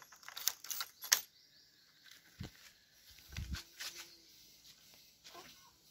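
A bunch of keys jingling and clicking as the key is fitted into the motorcycle's ignition, then a few faint handling bumps.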